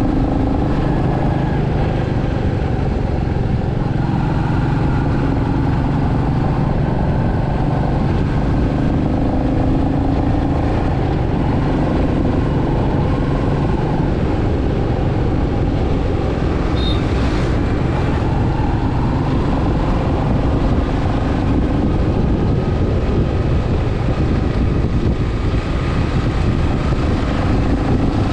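Royal Enfield Meteor 350's single-cylinder engine and exhaust running at a steady cruise, the note rising and falling a little with the throttle.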